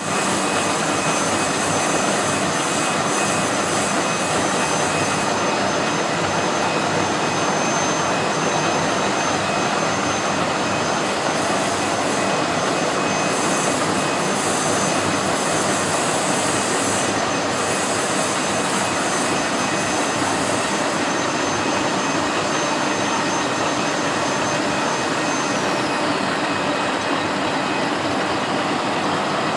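Milling machine cutting a helical gear with a module 7 gear cutter: steady machining noise with a high, thin whine that glides down in pitch about 26 seconds in.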